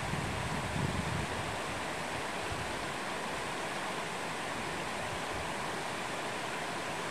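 Steady rush of a mountain stream running nearby. Wind buffets the microphone in the first second or so.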